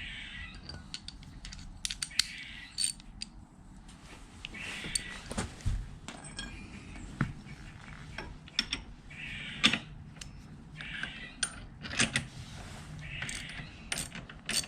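Hand socket ratchet clicking in short strokes, repeated every second or two as an M10 bolt on a motorcycle foot-peg mount is tightened, with sharp metal clinks of the tool and bracket between strokes.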